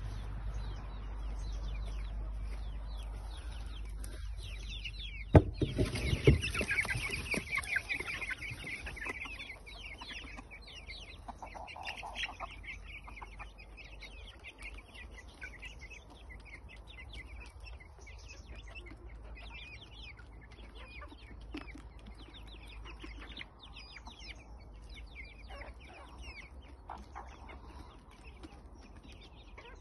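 A flock of chickens clucking and chirping, many short irregular calls overlapping. About five seconds in there is a sharp knock, followed by a few seconds of louder, busier calling before the clucking settles back down.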